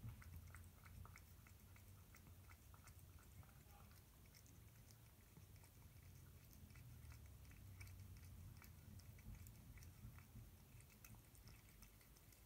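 Faint, irregular smacking and chewing of a cat eating wet food from a stainless steel bowl, many small soft clicks.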